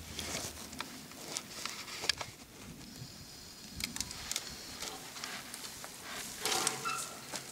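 Irregular rustling and light knocks as an African elephant's trunk tugs at a hay feeder hung from a pulley rope, with a louder burst of rustling near the end and a brief squeak just after it.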